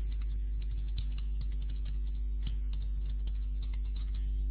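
Computer keyboard being typed on, with irregular light key clicks, over a steady low electrical hum.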